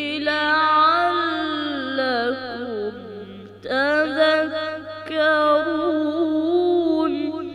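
A boy's voice chanting Quranic recitation in the melodic tajweed style, drawing out long ornamented notes that glide up and down between words. Two sustained phrases, with a breath about three and a half seconds in, over a steady low hum.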